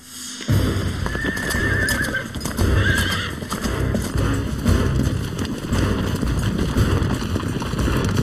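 Several horses galloping, hooves pounding on dry earth in a dense rapid beat that starts suddenly about half a second in. A horse neighs about a second in and again around three seconds.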